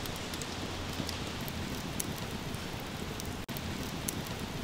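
Wood campfire crackling: a steady hiss with scattered sharp pops.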